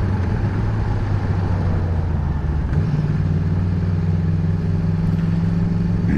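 Honda CBR600F's inline-four engine running as the bike is ridden. Its note steps up in pitch nearly three seconds in and then holds steady.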